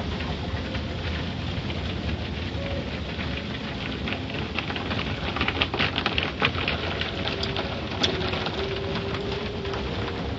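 Automatic car wash water jets spraying and pattering on a car's windshield, heard from inside the car, with a heavier spell of spattering in the middle and one sharp knock about eight seconds in. Near the end the cloth wash strips sweep across the glass.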